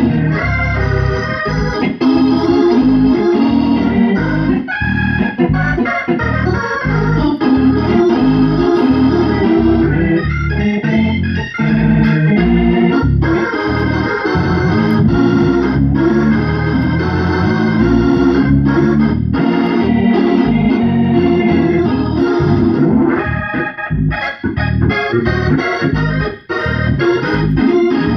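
Hammond C-2 tonewheel organ played through a Leslie 147 speaker cabinet, sustained full chords with bass, broken up by short choppy stabs, more of them near the end.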